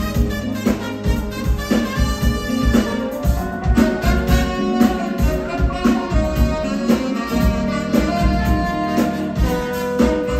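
Live big band playing: saxophones and brass over a drum kit, with a steady beat.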